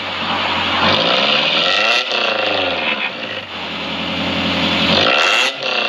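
Car engine blipped through an aftermarket racing exhaust, revving up and falling back several times. The revs are held highest about four to five seconds in, then drop near the end.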